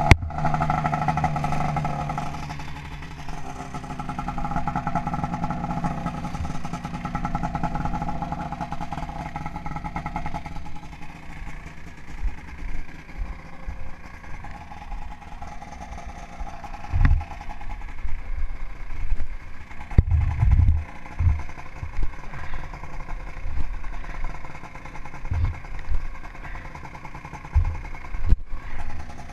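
Ski-Doo snowmobile engine running steadily for about the first ten seconds, then growing fainter. In the second half, a string of short, dull low thumps.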